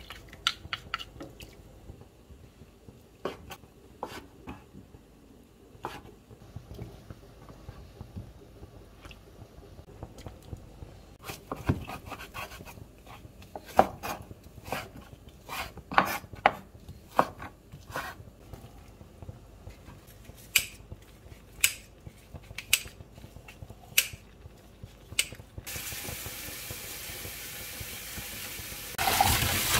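Sharp knocks of a chef's knife cutting fish cake on a wooden cutting board, coming irregularly about once a second through the middle. Near the end, a steady rush of tap water running into a stainless steel sink takes over.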